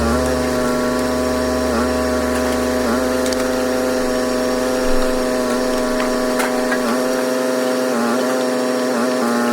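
Engine of the firewood splitter and conveyor setup running steadily, with brief dips in pitch every second or two. A deep rumble underneath fades out about two-thirds of the way through.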